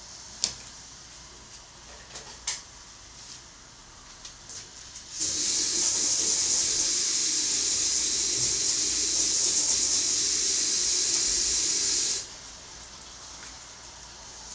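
Kitchen tap running into a sink for about seven seconds, switched on and off abruptly, preceded by a couple of sharp clicks.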